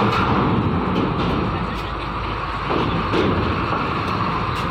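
Isuzu 265 diesel truck running as it drives slowly off a ferry ramp over steel grating. The grating clanks now and then under the wheels.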